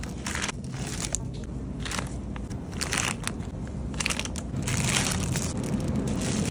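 Plastic produce bags crinkling and rustling as bagged fruit and vegetables are handled and set into a wire shopping cart, in a string of short, irregular bursts.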